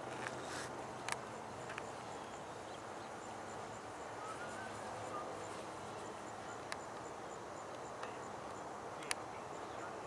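Quiet outdoor background: a steady hiss with a faint, rapid high-pitched chirping, and a few sharp clicks scattered through it.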